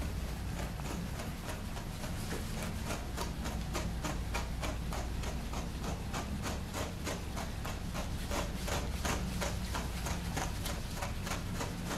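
A slicker brush is drawn in quick, repeated strokes through a schnauzer's matted leg coat, about three or four strokes a second, brushing out the mats.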